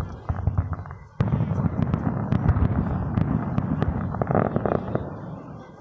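Fireworks show: sharp bangs of aerial shells, then about a second in a sudden dense barrage of overlapping bursts and crackle that fades away near the end.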